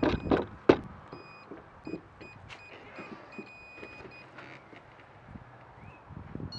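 A few sharp clicks and knocks of handling in the first second. Then faint high electronic beeps at two fixed pitches, starting and stopping for a couple of seconds, from a toy quadcopter's radio controller while it is synced to the quadcopter.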